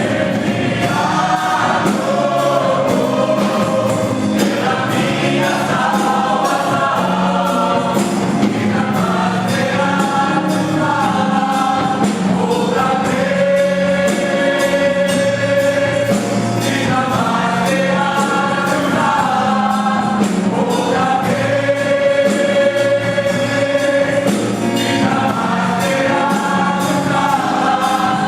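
A choir singing a Christian gospel song in sustained phrases over instrumental accompaniment with a steady beat.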